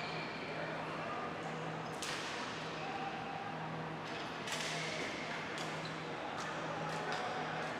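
Ball hockey play: a handful of sharp cracks of sticks striking the ball and each other, spaced irregularly over a few seconds, echoing in the arena over a low steady hum.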